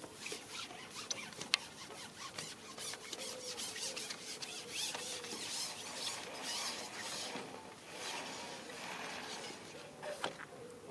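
A long carbon fishing pole being pulled back by hand, the pole sliding and rubbing with a run of irregular rasping squeaks and a sharp click about one and a half seconds in.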